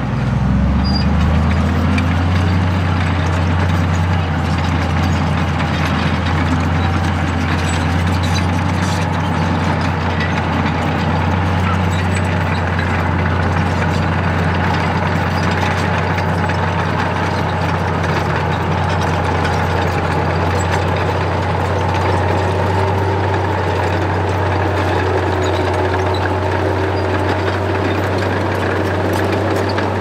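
Komatsu crawler bulldozer's diesel engine running steadily with a low, even drone while the machine works over a crushed-stone road bed.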